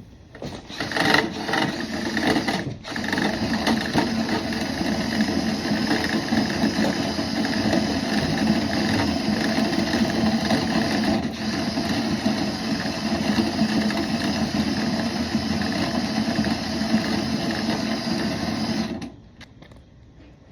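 Drill-driven rotary brush spinning inside a dryer vent duct, a steady loud buzzing rattle. It starts about a second in, stops briefly once, then runs on and cuts off shortly before the end.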